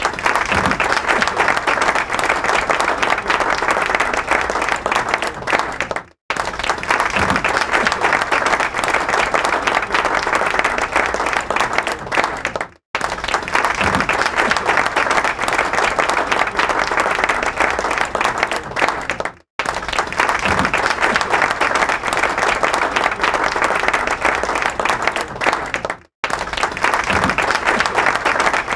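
Large crowd applauding steadily, a dense roar of clapping. It breaks off for a split second and starts again four times, about every six and a half seconds, as the same applause recording repeats.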